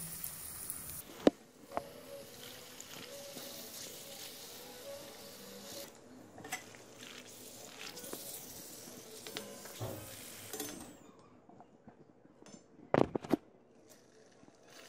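Golgappa puris deep-frying in hot oil in a black wok, a faint sizzle, with the odd click of a metal slotted spatula against the pan. Near the end comes a short burst of a few sharp metal knocks of the spatula on the wok.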